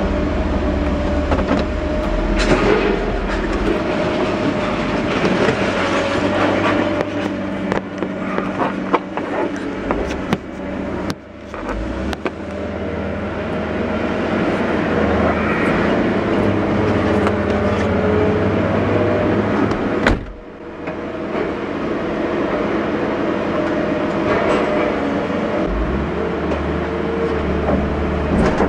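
Truck running, heard from inside the cab: a steady engine hum with scattered clicks and knocks, broken by a sudden short drop-out about twenty seconds in.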